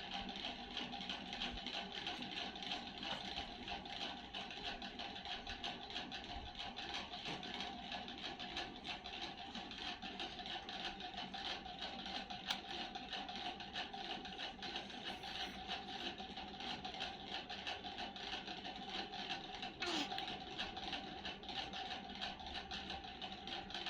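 A small motor running steadily with a constant hum.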